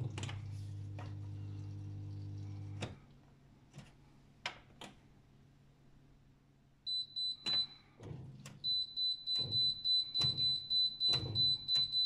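AEG 64740VFL washing machine: the drain pump hums steadily for about three seconds and stops, followed by a few sharp clicks. From about seven seconds in the machine sounds a high beep repeated about three times a second, its alarm for error E24.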